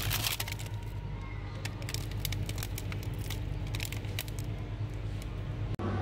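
Crinkly plastic ice-cream wrapper crackling as a hand grabs a frozen stick bar and lifts it out of a freezer, with a cluster of crackles at the start and scattered ones after, over a steady low hum.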